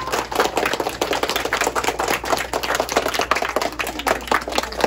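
A group of children and an adult applauding: many hands clapping in a dense, steady patter.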